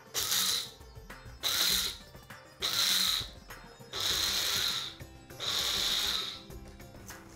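Small electric mixer-grinder run in five short pulses, its motor whining up with each burst and stopping between them, as a dry ingredient mix is ground to powder. The later pulses run longer.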